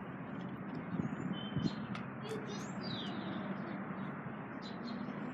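Small birds chirping, with short high calls and a few quick falling slides, over a steady outdoor background hiss; a couple of faint knocks come in the first two seconds.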